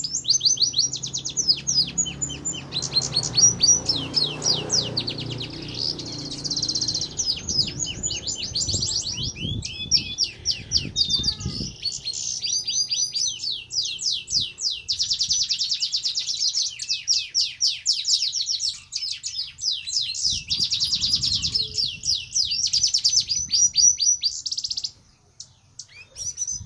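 Red siskin in breeding condition singing hard: a long, fast twittering song of rapid high trills and rattles, breaking off about 25 seconds in. A low rumble runs underneath during the first half.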